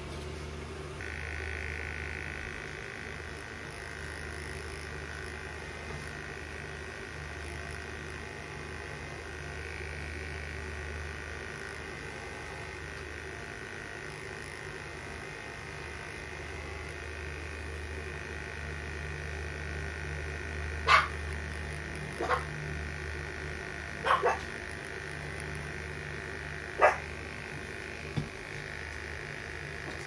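A dog barking, five short sharp barks spread over about seven seconds in the second half, over a steady low hum and a steady high drone.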